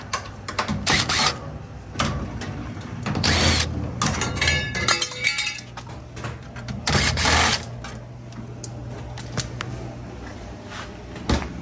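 Irregular clunks, knocks and scrapes of hands and tools working on a top-load washing machine's metal cabinet as it is being opened up, one scrape with a squeaky ring, over a steady low hum.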